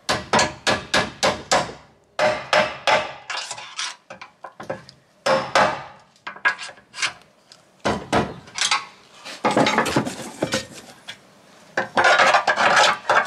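Hammer knocking on the rear control arm and subframe, driving the suspension parts into line so the bolt will go through. Quick runs of sharp knocks, several a second, with short pauses between runs.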